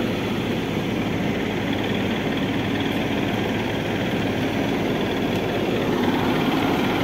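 Heavy diesel engine idling steadily, from a JCB backhoe loader or the stuck school bus.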